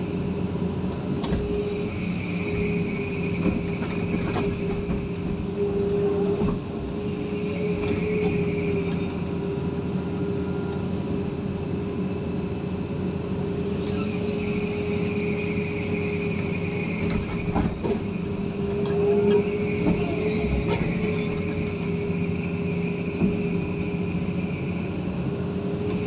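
Vehicle engine running steadily, with a higher whine that rises and fades several times.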